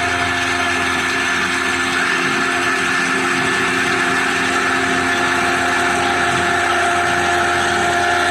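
CNC milling machine running steadily: an even machine noise with a few steady whining tones held throughout.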